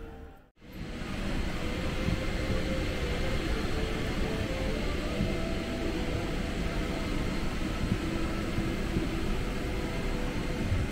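Steady engine and rushing-air noise inside a jet airliner's cabin, fading in after a brief gap about half a second in.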